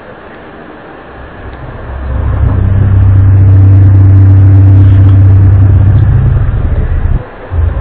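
Loud, low droning hum at a steady pitch, the kind reported as a mysterious 'sound from the sky'. It swells in about two seconds in, holds, and cuts out briefly near the end.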